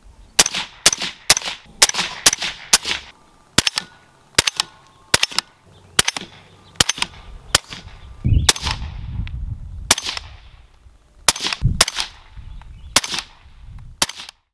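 Suppressed rifle shots through 3D-printed Inconel 718 suppressors: a quick string of about half a dozen shots, then single shots every half second to a second, around twenty in all.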